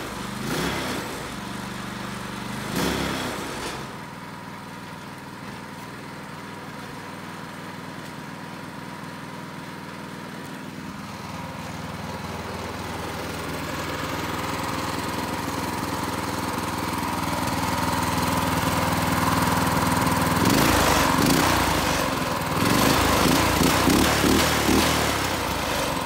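Predator 212 cc single-cylinder four-stroke gasoline engine on a go-kart running steadily, growing louder over the second half.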